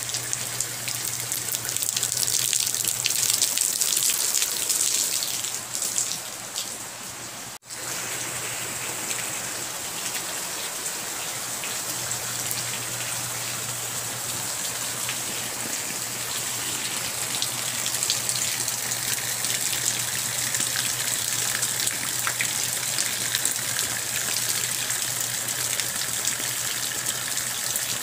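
Steady rain falling on desert brush and ground, a dense patter of drops, a little heavier in the first few seconds. The sound cuts out for an instant about seven and a half seconds in, then carries on evenly.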